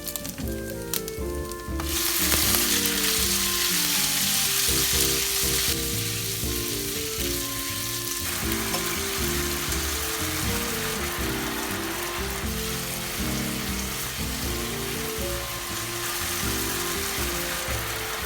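Food sizzling in a frying pan over background music. The sizzle jumps up about two seconds in, as food hits the hot pan, and is loudest for the next few seconds before settling to a steadier fry.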